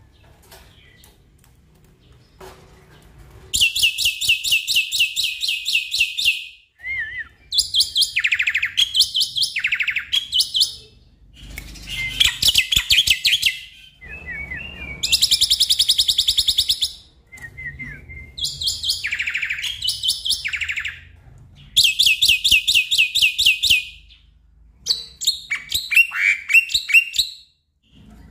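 Black-winged myna (jalak putih) singing: loud chattering phrases of rapid, evenly repeated sharp high notes, each about two to three seconds long, seven in all with short pauses between them. The calls begin a few seconds in, after a quieter start.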